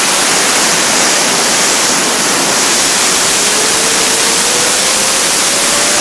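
Compressed air from an air compressor's nozzle blasting onto a fidget spinner: a loud, steady hiss. From about halfway a faint whine slowly rises in pitch as the spinner speeds up.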